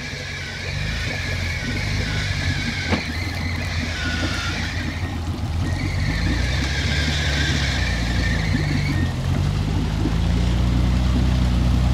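Off-road GAZ Volga on 39-inch tractor tyres, engine revving up and down under load as its wheels dig through mud, with a high whine gliding along with the engine. It grows louder toward the end.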